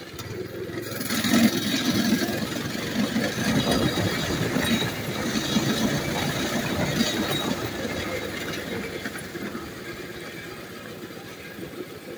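Mini bike's small engine running as it rides along a bumpy dirt trail, growing quieter over the last few seconds as the bike slows.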